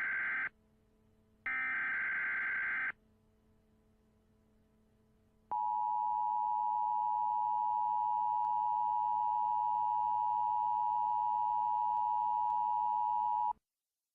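Emergency Alert System tones: a buzzy burst of digital header data ends about half a second in and a second burst follows at about 1.5 s, lasting a second and a half. After a short silence the steady two-tone attention signal sounds for about eight seconds and cuts off near the end.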